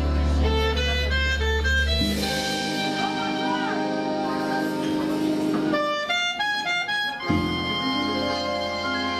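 Instrumental song introduction: sustained chords under a melody line, with a quick run of short notes about six seconds in.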